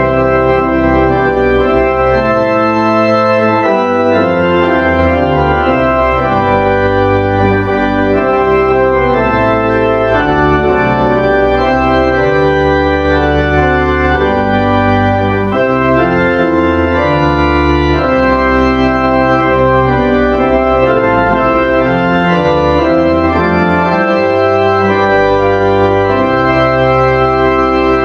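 Church organ playing a postlude: sustained, held chords over bass notes that change every second or two.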